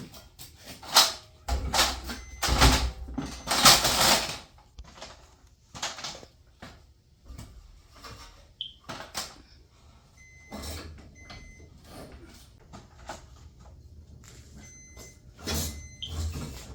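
Irregular metal knocks and clanks from garage door torsion shaft hardware being shifted and worked by hand, with a dense cluster of loud knocks in the first few seconds and sparser ones after.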